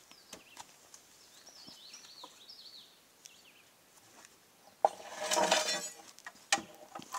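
Lumber being handled on a dirt slope: a sharp knock about five seconds in, then about a second of wood scraping against wood, with a few more light knocks near the end. Earlier, a bird chirps a few short falling notes.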